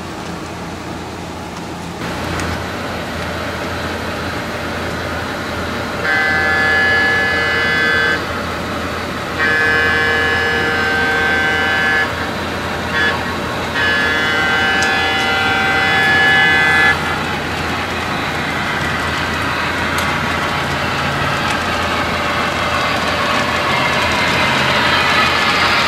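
Multi-tone diesel air horn of an HO-scale Alco PA1 model locomotive sounding the grade-crossing signal: two long blasts, a short one, then a long one, over a steady running hum. Near the end the rumble of the model train rolling on the track grows louder as it approaches.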